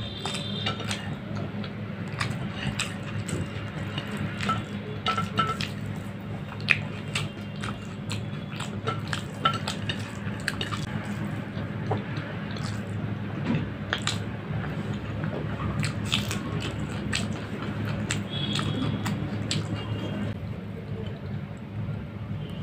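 Close-up eating sounds: chewing and frequent small mouth clicks as rice, egg and greens are eaten by hand, with fingers working food against a ceramic plate, over a steady low hum.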